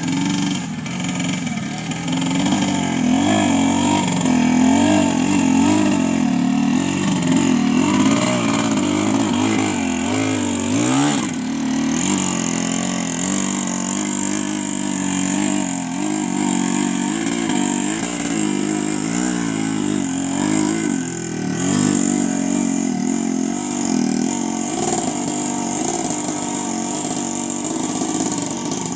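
Motorcycle engine running under load hauling rubber-tree logs, its pitch rising and falling as the throttle changes, with a short rev-up about ten seconds in.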